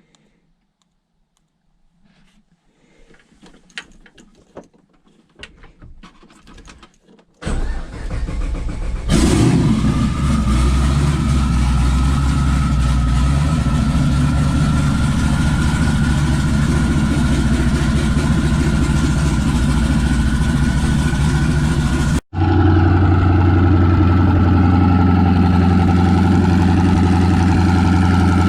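Kohler Command Pro 15 single-cylinder engine being started on its electric starter: a few faint clicks, then cranking about seven seconds in, and the engine catches about two seconds later and runs. After an abrupt break about two-thirds of the way through, it idles steadily.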